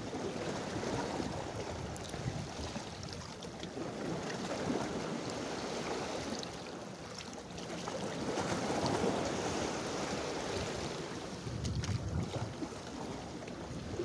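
Choppy sea water sloshing and washing around rocks, swelling louder about eight seconds in, with wind on the microphone.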